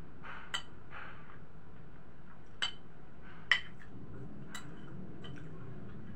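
Metal spoon clinking and scraping against a plate while eating, a few separate sharp clinks, the loudest about three and a half seconds in.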